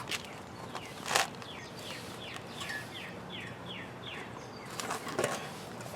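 A bird calling a quick run of about eight short falling notes, roughly three a second, over a few rubbing and clicking handling noises from an inner tube being worked into a bike tire; the louder handling sounds come about a second in and near the end.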